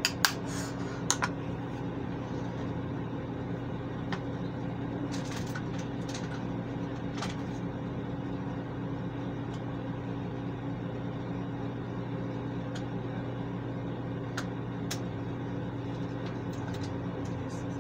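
Steady hum of a bathroom ceiling exhaust fan, with a few sharp clicks in the first second or so from plastic makeup cases being handled, and faint ticks now and then.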